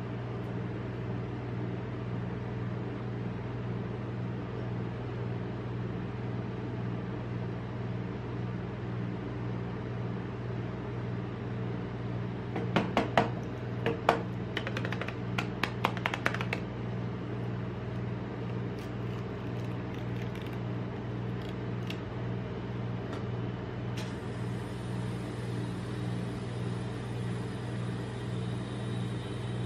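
Steady electric hum of a rolled-ice-cream cold plate machine running, with a cluster of sharp clicks and crackles about halfway through as the plastic dessert cup is handled and opened.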